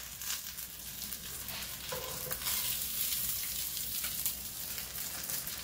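Breaded fish fillets frying in shallow oil in a skillet: a steady crackling sizzle that swells a little about halfway through.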